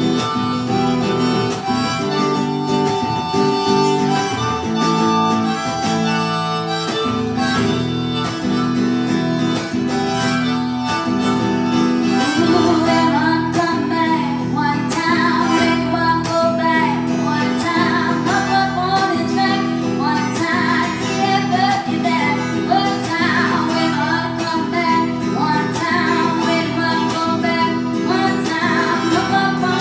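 Live harmonica with guitar accompaniment playing an instrumental passage. The harmonica holds chords at first, then from about twelve seconds in plays a busier melody with bent, wavering notes.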